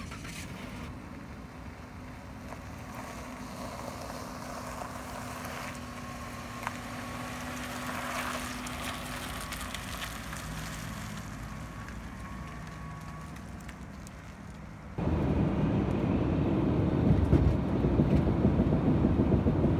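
Low rumble of a camper van's engine with a steady hum. About fifteen seconds in it cuts abruptly to loud wind buffeting and road noise from driving at highway speed.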